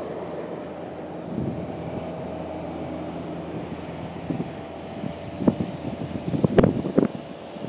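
Steady distant rumble of an approaching Airbus A330-300 airliner's jet engines, with wind buffeting the microphone. A few sharp bumps and gusts come between about five and seven seconds in.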